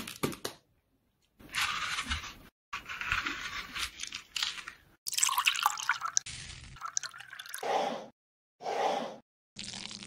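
A run of short, separately cut food-preparation sounds, mostly liquid pouring and dripping into a glass dish, with brief silent gaps between the cuts.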